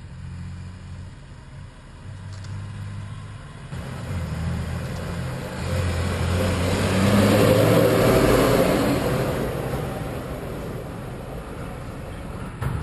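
Articulated dump truck's diesel engine running as it drives past on a dirt haul road, growing louder to a peak about seven or eight seconds in, then fading.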